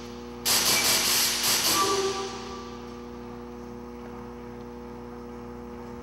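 Sampled electronic sound triggered by an acceleration sensor on the dancer's arm: a bright, noisy burst with a rapid flutter, starting about half a second in and fading out after about a second and a half. A steady electrical hum runs underneath.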